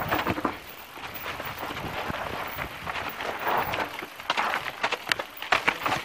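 Mountain bike riding fast down a rough dirt trail: a steady noise of tyres on dirt and rushing air, with frequent sharp knocks and rattles as the bike goes over bumps.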